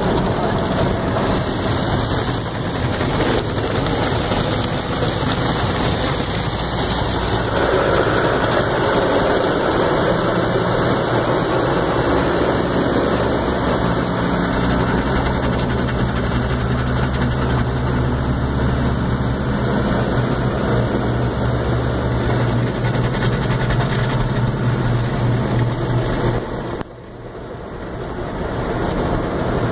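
Automatic tunnel car wash heard from inside the car: water spray hitting the windshield and body over the running wash machinery, with a steady low hum from about ten seconds in. The noise drops sharply near the end, then builds again.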